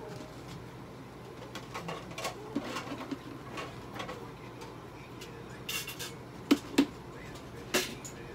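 Green self-adhesive (cohesive) bandage being pulled off its roll in short tugs: scattered crackles and tearing sounds. Two sharp snaps come close together about six and a half seconds in, and another follows a second later.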